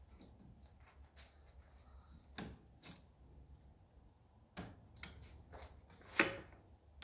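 Scattered clicks and knocks of a hand tool working against metal fittings at the bottom of a tractor radiator, with the loudest knock near the end. A faint low hum runs underneath.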